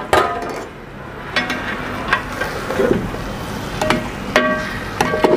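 Metal ladle stirring a large metal pot of nearly cooked rice pulao, knocking against the pot several times with short metallic rings, over a steady sizzle of the last water bubbling off.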